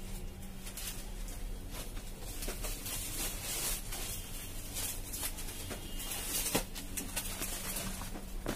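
Rustling and soft handling noises of silk sarees being unfolded and laid out, with a couple of sharper clicks, one about two-thirds of the way through and one near the end, over a steady hum.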